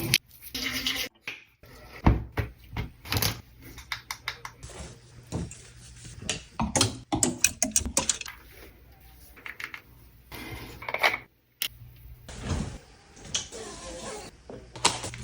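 Irregular clicks, taps and clinks of household objects being handled close by, some coming in quick runs, with two abrupt drops to silence, about a second in and about eleven seconds in.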